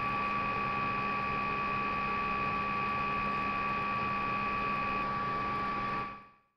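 Steady electrical hiss and hum with several thin, high steady tones, the noise of the recording chain with no one speaking; it fades out about six seconds in.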